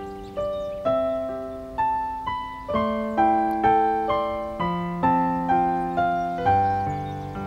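Background music on solo piano: a slow, gentle melody of single notes struck about twice a second, each left to ring and fade.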